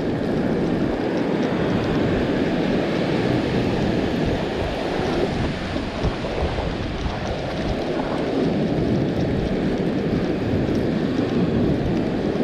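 Steady rush of breaking surf, with wind buffeting the microphone in an uneven low rumble.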